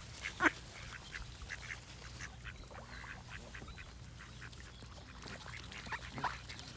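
Ducks quacking: many short, overlapping quacks in quick runs, the loudest about half a second in and another burst near the end.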